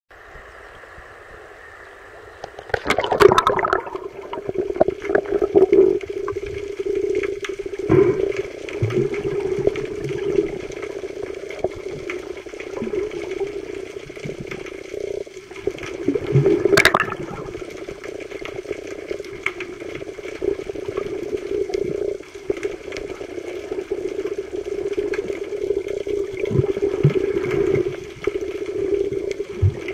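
Water noise picked up by a camera held underwater: sloshing and bubbling with a steady hum, after a splash about three seconds in as the camera goes under. There is a sharp knock near the middle.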